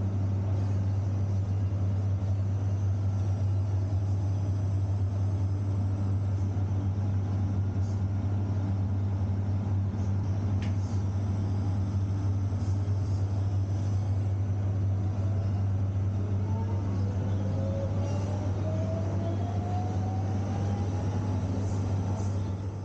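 PET/CT scanner running a CT scan, a steady low mechanical hum. A fainter whine rises in pitch over the last several seconds. The hum stops abruptly at the end as the scan finishes.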